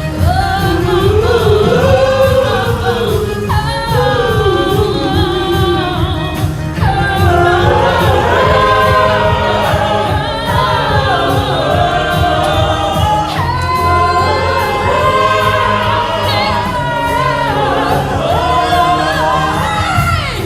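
Several voices singing a song together in harmony over instrumental accompaniment.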